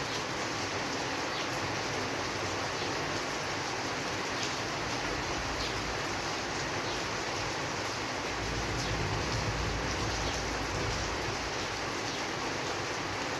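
Steady rain falling, an even hiss with scattered individual drops ticking. About halfway through, a low rumble swells underneath and fades again.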